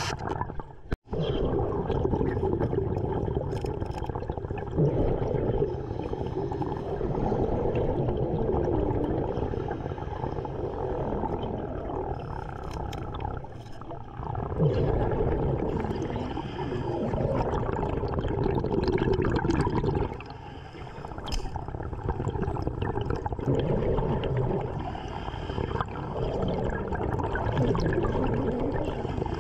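Underwater sound of a diver breathing: exhaled air bubbling and gurgling past the microphone in surges every few seconds, over a steady water rush.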